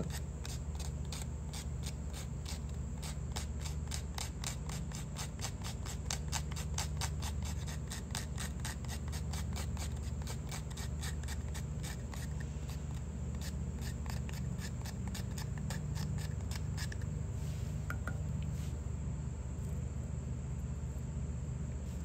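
The small wood saw of a Victorinox Swiss Army Hiker pocket knife rasping back and forth across dry wood, about five quick strokes a second. The strokes stop well before the end and fine shavings come off the wood.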